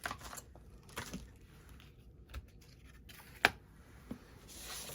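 Quiet handling of card-making supplies at a desk: scattered small clicks and rustles, one sharp tap about three and a half seconds in, and a soft rustle near the end.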